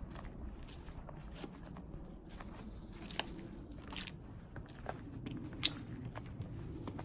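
Footsteps crunching over debris on a bare floor, with scattered sharp cracks and clicks, the loudest about three, four and five and a half seconds in.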